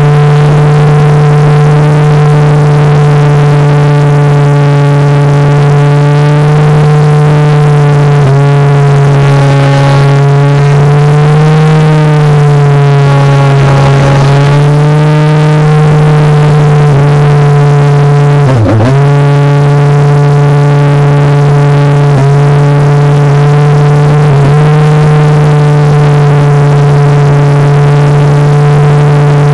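RC Accipiter Badius plane's motor and propeller, heard very close up, running steadily with a loud, even hum. The pitch sags and recovers a few times, most sharply about two-thirds of the way through, as the throttle is eased and brought back.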